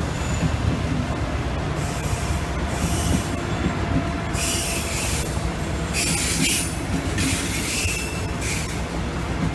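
Red double-deck passenger train rolling past at close range: a steady rumble of wheels on rails, with several bursts of high-pitched wheel squeal in the second half.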